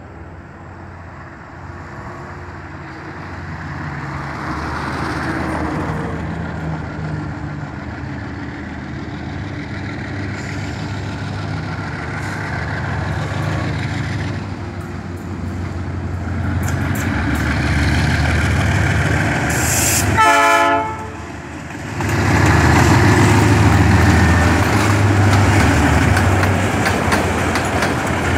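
Diesel-electric U20 locomotive running under power as it approaches and passes close by, its engine noise building steadily. There is a short drop-out in the sound about 21 seconds in, after which rail wheels clatter over the track along with the engine.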